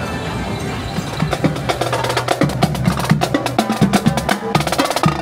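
Music with a fast percussive beat of quick, sharp strikes, which comes in about a second in over a steady musical bed.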